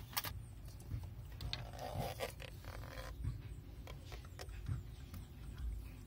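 Plastic bottle of automatic transmission fluid handled beside a filler funnel: faint scattered clicks, taps and scrapes, with a short rustle about two seconds in.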